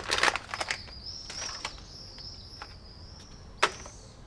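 Crinkling of a small plastic bag as a cuttlefish-shaped jig lure is worked out of it, thinning after about a second to scattered rustles and clicks, with one sharper click near the end. A thin, high wavering whistle runs in the background from about a second in.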